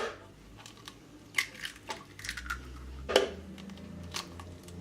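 Eggs being cracked and emptied into a blender jar, making scattered light clicks and taps of eggshell, with a sharper tap about three seconds in. A faint low hum begins about two seconds in.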